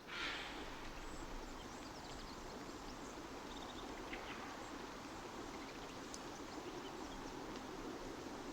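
Steady outdoor background noise with scattered faint bird chirps, starting suddenly at the beginning.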